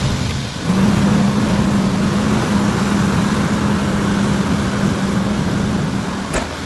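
Demolition excavator's diesel engine running steadily, a low hum over a broad rushing noise, with one short sharp click near the end.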